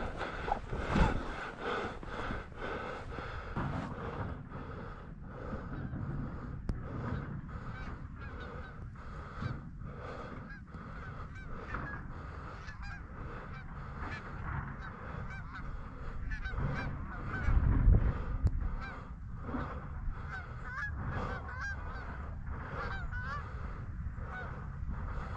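Canada geese honking, many short calls repeated over and over. A low muffled bump a little past the middle is the loudest moment.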